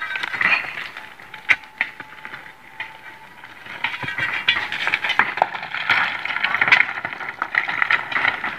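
Loose rock and gravel clattering and rattling on a quarry slope. There are a few sharp knocks of stone on stone early on, then a denser rattle from about four seconds in.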